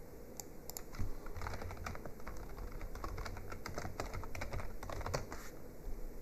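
Typing on a computer keyboard: a quick run of keystrokes from about a second in, stopping shortly before the end, with a few single clicks before it.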